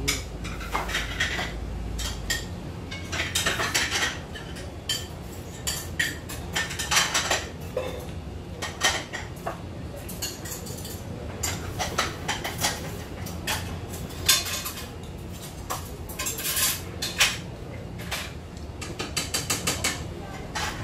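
Chopsticks tapping and scraping against a ceramic bowl while noodles are eaten, giving irregular small clinks and clicks.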